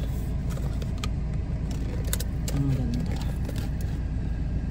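Steady low rumble inside a car, with a small cardboard box being opened by hand: a few light clicks and rustles as its flaps are pulled open.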